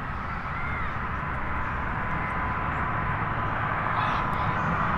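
Jet airliner on approach to land, its engines a steady low rumble and hiss that grows gradually louder, with a thin steady whine. A crow caws once about half a second in.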